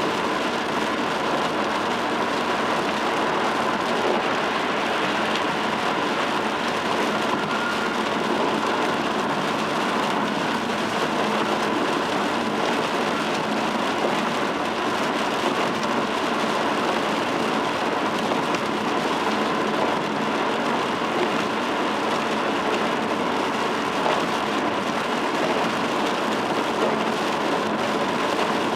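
Steady rain and wet-road noise from a car driving in the rain: an even, unbroken hiss of rain and tyres on wet pavement.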